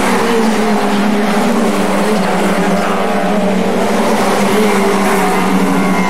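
A pack of small Lightning Rod saloon race cars running flat out around the oval, several engine notes overlapping and rising and falling as the cars pass.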